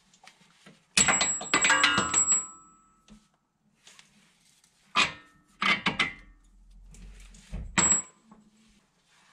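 Loose metal suspension parts of a Honda Ridgeline's front corner clanking and clinking with a short ringing, in four bursts, the longest about a second in, as the hub and steering knuckle are wiggled to free the CV axle.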